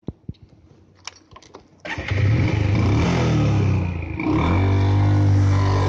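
Bajaj Pulsar motorcycle's single-cylinder engine under way, coming in suddenly about two seconds in after a few faint clicks. The engine note climbs, drops briefly around four seconds in as the bike shifts up a gear, then picks up again at lower revs.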